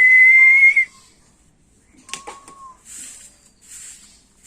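A loud, steady whistle held on one note that cuts off a little under a second in. About two seconds in come a few sharp clicks and a short, lower chirp.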